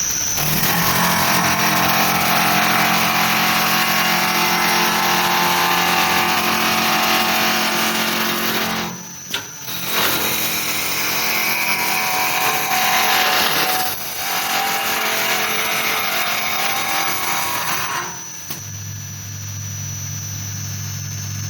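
Wood lathe running while a tool cuts a wooden handle: a steady machine hum under a loud cutting hiss. The sound breaks off briefly partway through, and near the end the cutting hiss drops away, leaving a lower hum.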